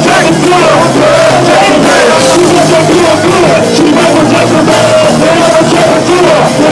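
Live band playing loud music: voices singing into microphones over drums and electric guitar.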